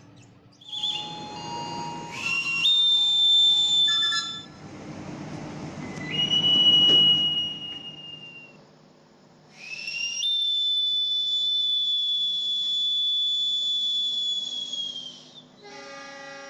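Railway staff's hand whistles blown as train departure signals: three long shrill blasts, the middle one lower in pitch and the loudest, the last held for about five seconds. Near the end a fainter chord of steady tones begins, the diesel locomotive's horn answering.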